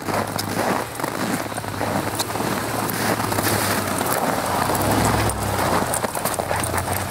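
Chevrolet Colorado ZR2 pickup driving slowly past on snow with chains on its tyres: the engine runs with a low steady hum under a rhythmic clinking and clattering of the chains and crunching snow. It is loudest about four to five seconds in, as the truck passes close.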